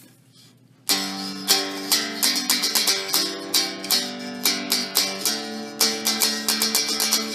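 A hick stick, a home-built cigar-box-style stringed instrument, being picked and strummed. It plays a quick run of sharp-attacked twangy notes, about two or three a second, starting about a second in.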